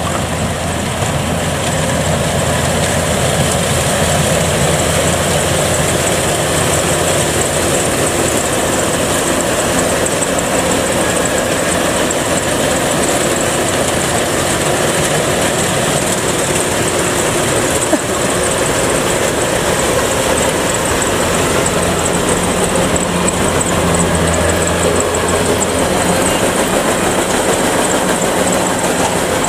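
Kubota DC-105X rice combine harvester running steadily under load, its diesel engine and cutting and threshing machinery working as it harvests standing rice. Loud and even, growing a little louder in the first couple of seconds as it comes closer, with one sharp click about 18 seconds in.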